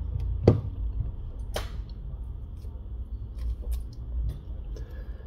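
Light clicks and taps from handling an opened smartphone on a work mat, with two sharper clicks about half a second and a second and a half in, over a steady low rumble.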